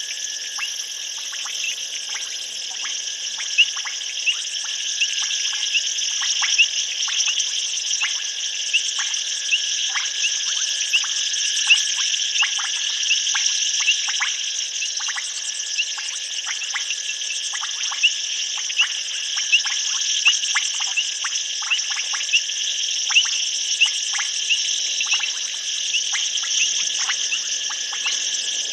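Night chorus of insects and frogs: a steady high-pitched trilling, with short sharp clicking calls scattered irregularly through it, two or three a second.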